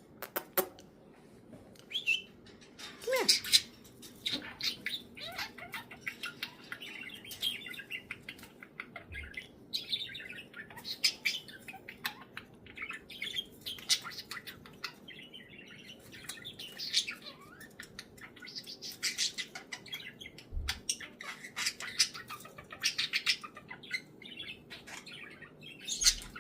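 Pet budgerigars chirping and chattering: a steady run of short, high chirps, clicks and squawks, the loudest about three seconds in.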